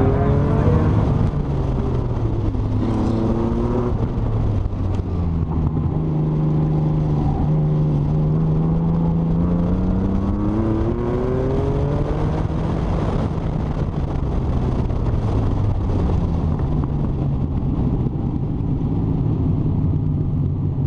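TVR Cerbera Speed Six's straight-six engine accelerating hard through the gears, its note climbing and dropping back at each gear change, then settling lower and steadier about two-thirds in before climbing again.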